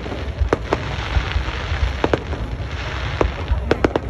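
Aerial fireworks shells bursting overhead: about seven sharp bangs at irregular intervals, over a continuous noisy background.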